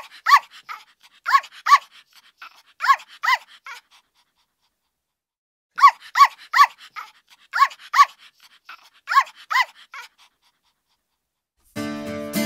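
Small dog yapping in quick pairs of short, high barks, in two runs of about four seconds with a pause of about two seconds between them. Acoustic guitar music starts just before the end.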